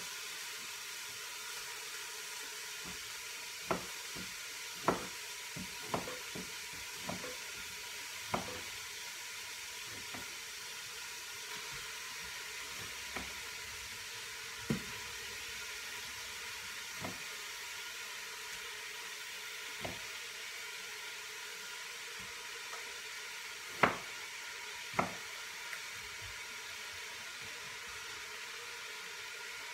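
Beef sizzling as it sears in the pot of an electric pressure cooker, a steady hiss. Over it come scattered sharp knocks of a knife cutting through raw beef onto a cutting board, the two loudest near the end.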